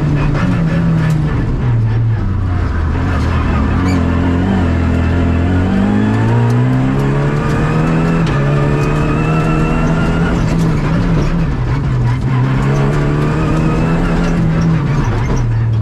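Rally car's engine heard from inside the cabin, driven hard along a tarmac stage: the pitch falls as the car slows about a second and a half in, stays low for a few seconds, climbs again as it accelerates, then holds high with brief dips on lifts and gear changes, and falls again near the end.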